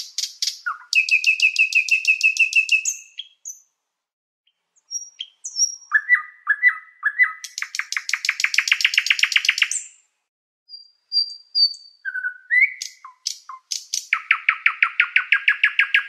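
Common nightingale singing: phrases of fast, evenly repeated notes at about seven a second, each phrase one to three seconds long, broken by short pauses and a few single whistled notes.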